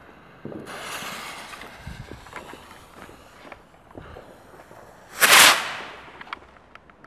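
A small sky rocket's fuse hissing after it is lit, then the rocket launching with a loud whoosh about five seconds in that fades as it climbs.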